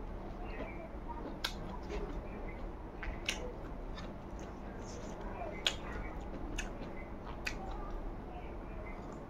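Close-up eating sounds of rice and soibum eromba eaten by hand: scattered sharp, wet clicks, about six in nine seconds, over a steady low hum.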